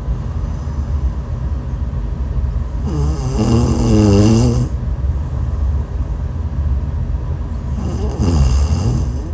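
A woman snoring in her sleep: two long, pitched snores whose pitch bends up and back down, about three seconds in and again near the end, some five seconds apart. A steady low rumbling noise runs between them.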